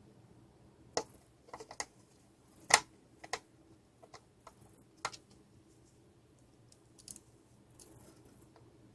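Irregular sharp clicks and taps of a plastic router housing and a metal screwdriver being handled as the case is put back together, the loudest about three seconds in.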